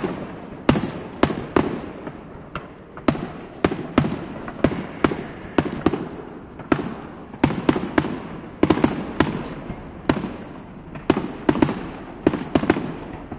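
Aerial firework shells bursting overhead: a rapid, irregular string of sharp bangs, often two or three a second, each with a short echoing tail.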